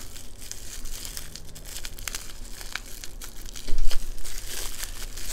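Plastic bubble wrap crinkling and crackling as it is handled and cut open with scissors, with a louder burst about three and a half seconds in.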